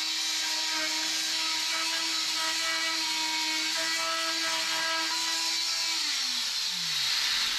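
Oscillating multi-tool running at a steady pitch as its blade scrapes glued-on residue and wood bits off a wooden edge. About six seconds in it is switched off and its pitch falls away as it winds down.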